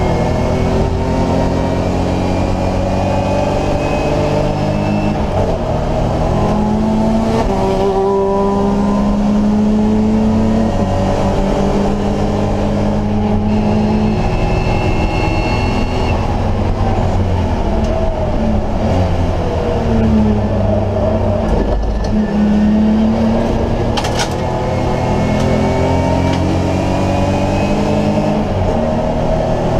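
BMW E30 race car's engine heard from inside the cockpit under hard acceleration, its pitch climbing in steps through the gear changes. It falls away in the middle, then pulls up through the gears again. A single sharp click is heard late on.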